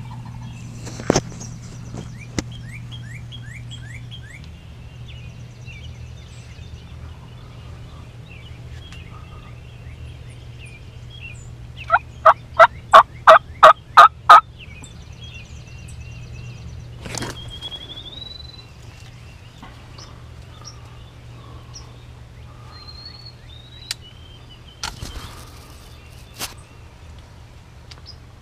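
A rapid run of about eight loud turkey yelps midway through, with songbirds chirping behind it. A few single sharp knocks come near the start and later on.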